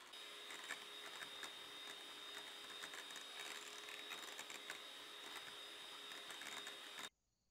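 Electric hand mixer running steadily, its twin beaters creaming a butter, sugar and egg batter in a glass bowl, with a steady whine and light ticks throughout. The sound cuts off suddenly near the end.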